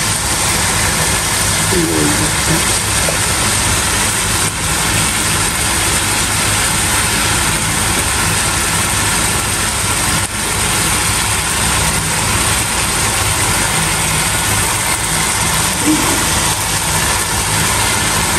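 Steady, loud rushing noise with a low hum beneath it, unchanging throughout, like a machine running constantly. A faint voice comes through briefly about two seconds in and again near the end.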